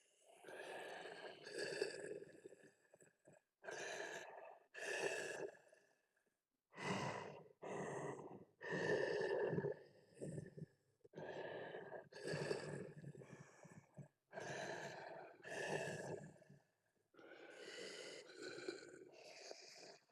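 Tusken Raider vocal sound effect: a series of short, quiet breaths and sighs, each under a second, with brief pauses between them.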